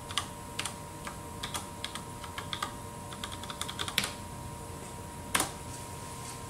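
Typing on a computer keyboard: a quick run of key clicks for about four seconds, then a louder single press about four seconds in and another about a second and a half later, over a steady faint electrical hum.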